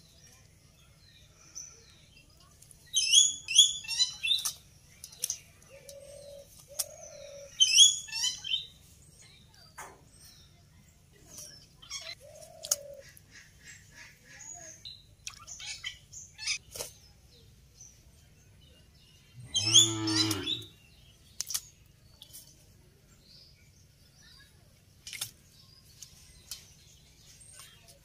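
Bird chirping in short, high bursts a few seconds in and again about eight seconds in, then a fuller, louder call about twenty seconds in. Scattered small clicks and splashes of water sound between the calls.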